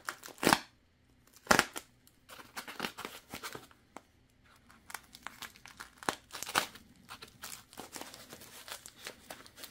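Box-cutter blade slicing the tape on a plastic-wrapped foam packing block, with the plastic crinkling as the block is handled. Sharp scraping strokes come at the start, about a second and a half in, and again around six seconds in, with quieter rustling between.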